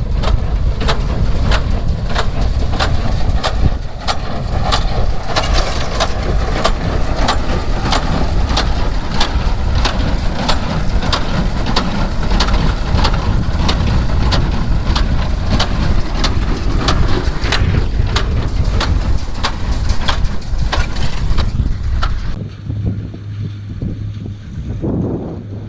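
New Holland 377 conventional small square baler at work: its plunger knocks steadily, a little under two strokes a second, as it packs straw into the bale chamber, over the rumble of the tractor engine. About three seconds before the end the knocking stops, leaving a quieter steady engine hum.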